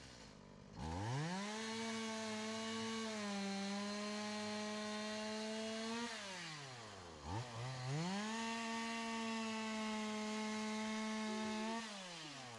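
Chainsaw running at full throttle while cutting into a tree trunk. It revs up about a second in and holds for about five seconds, eases back toward idle, then revs up again about a second later for another long cut and drops off near the end.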